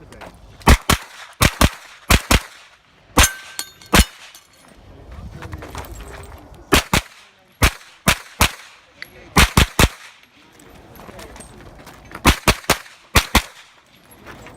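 JP Rifles GMR-15 9mm carbine fired in quick strings of shots at steel targets, in clusters of two or three with short pauses between, and steel plates ringing after hits.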